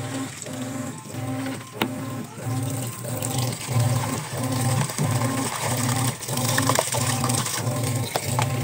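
Washing machine running, its motor giving a low hum that pulses evenly about twice a second, with faint splashing of water and detergent pouring into the sudsy drum.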